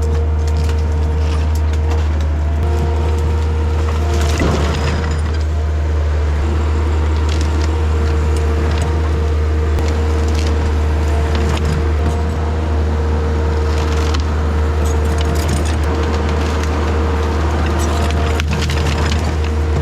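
Takeuchi TL10 compact track loader's diesel engine running steadily under load, with a steady whine over it. Oak wood cracks and splinters as the tree shear cuts, with sharp cracks about four seconds in, around fifteen seconds and near the end.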